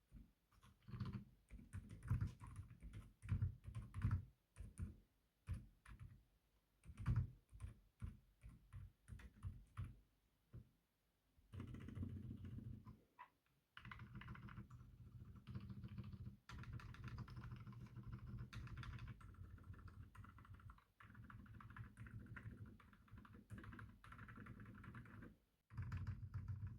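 Dark Project x Akko 5087S mechanical keyboard with lubed, quiet Akko Fairy tactile switches and foam between PCB and plate, being typed on; its keystrokes are soft and muted, likened to a membrane keyboard. At first come separate keystrokes and short runs. From about halfway it turns to fast continuous typing, broken by two brief pauses.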